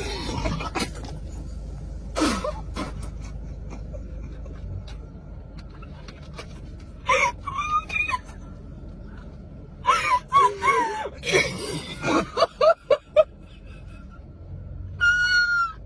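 Girls trying to burp for fun, between gasps and laughter: a deep falling burp about two seconds in, then later a quick run of short voiced bursts and giggles.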